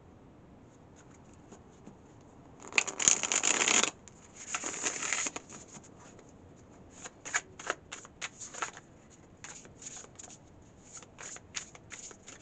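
A deck of sturdy-cardstock tarot cards being shuffled by hand. Two dense runs of cards riffling, each about a second long, come about three and four and a half seconds in, followed by a string of short card taps and slides.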